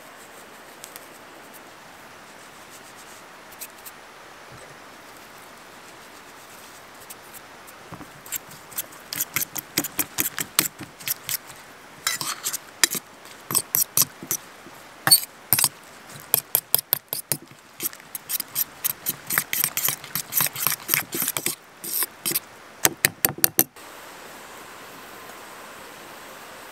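A fork beating eggs with chopped herbs and chili flakes in a stainless steel bowl: quick runs of metallic clinking as the tines strike the bowl. It starts a few seconds in and stops suddenly near the end.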